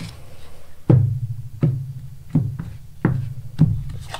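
A slow, even beat of five low drum-like thuds, about two-thirds of a second apart, starting about a second in.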